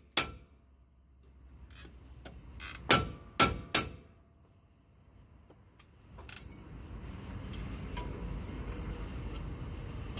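Sacrificial mallet striking the steering yoke and coupler of a Kodiak jet pump to knock the parts loose: one blow at the start, then three quick blows about three seconds in. A steady low rumble sets in about six seconds in.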